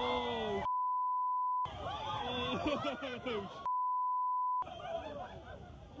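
A steady censor bleep, twice, each about a second long, blanking out everything else. Between the bleeps are excited, overlapping voices of people shouting and exclaiming.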